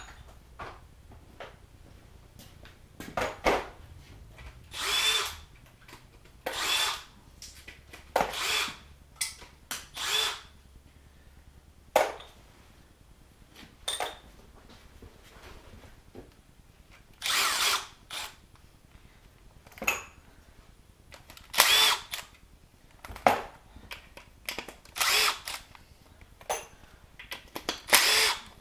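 Cordless drill run in many short bursts of about a second each, spinning bolts out one after another.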